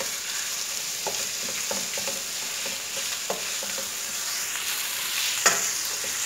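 Chicken mince and chopped onion frying with a steady sizzle in a non-stick pan while a wooden spatula stirs and scrapes through it. Several light knocks of the spatula against the pan, and a sharper knock near the end.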